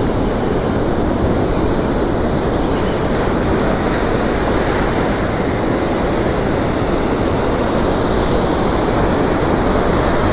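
Steady rush of ocean surf breaking and washing up the beach, with wind buffeting the microphone.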